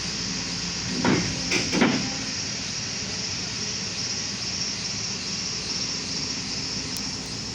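Volvo excavator running steadily, with a few short metallic clanks between about one and two seconds in.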